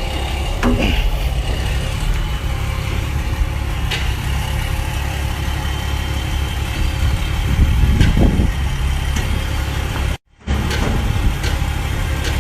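Diesel engine of a truck-mounted crane running steadily, with a few scattered knocks. The sound cuts out completely for a moment about ten seconds in.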